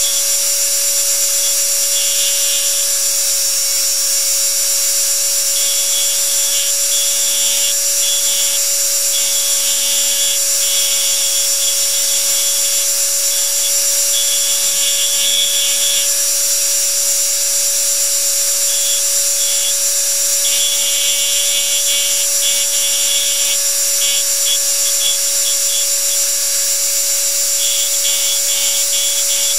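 Powered engraving handpiece driving a graver tip into the metal of a coin. It gives a steady high-pitched machine whine with a lower hum, plus a buzz that switches on and off in short spells as cutting strokes start and stop.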